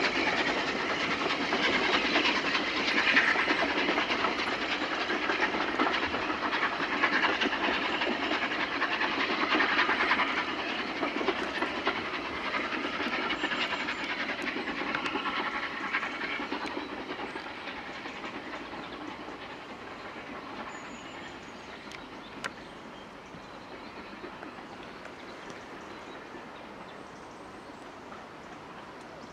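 Steam locomotive hauling a train of coaches away along the line, the working of the engine and the run of the coaches fading steadily over the first twenty seconds or so.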